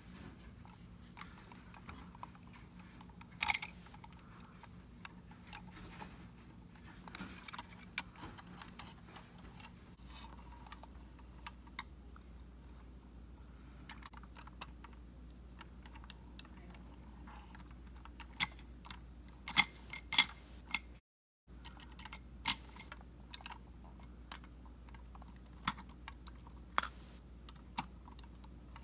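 Scattered small clicks and knocks from a KDW toy front-loader garbage truck being worked by hand, its fork arms and miniature dumpster tapping together, over faint handling rustle. The sharpest clicks come about three seconds in and in a cluster around two-thirds of the way through.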